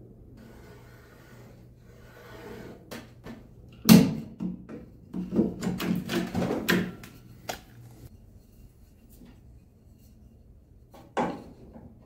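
Wood and tools handled on a wooden workbench: a light rustle, then one loud knock about four seconds in, a run of clunks and rattles over the next few seconds, and another sharp knock near the end.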